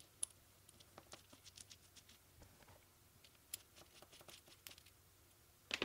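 Faint clicks and light metal taps of small hardware being handled: a bolt, washers and a roller fitted onto an aluminium plate, and a hex key seated in the bolt head and turned, with a slightly louder tap near the end.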